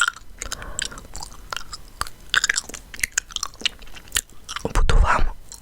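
Chewing gum close to the microphone: irregular wet smacks and clicks of the gum in the mouth.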